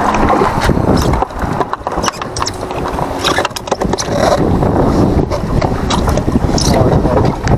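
Wind buffeting the microphone over choppy water on a small boat, with scattered knocks and scrapes from handling on deck.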